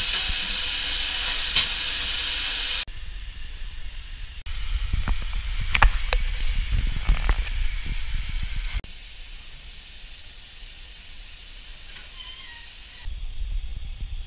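Steam locomotive at a standstill, Bulleid West Country class 34092: a steady hiss of escaping steam. After a cut, a deep rumble of the coal fire in the open firebox with several sharp clanks. Then a quieter hiss.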